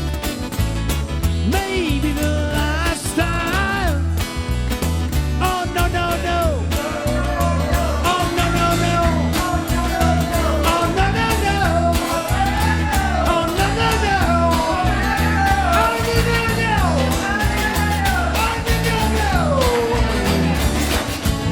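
Live rock band playing an instrumental passage: a lead melody with notes bending up and down in pitch over a steady bass and drum beat.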